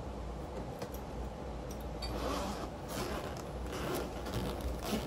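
Zipper of a neoprene carry case being pulled open, a scraping run of zip teeth in several strokes.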